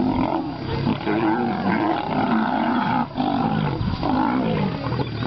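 Several lions growling and snarling without pause as a pride attacks a white lion, harsh wavering calls that break off briefly about three seconds in.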